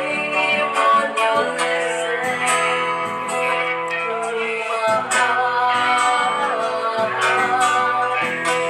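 Background music led by a strummed acoustic guitar with sustained notes.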